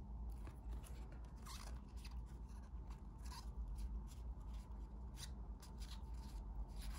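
Faint handling of trading cards: cards sliding and rubbing against each other as they are picked out and sorted, with scattered light scrapes and ticks.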